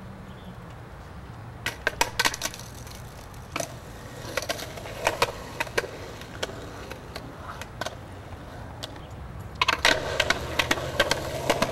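Scattered clicks and light rattles, then from near the end a dense rustle of leaves and branches being brushed as someone pushes through bushes.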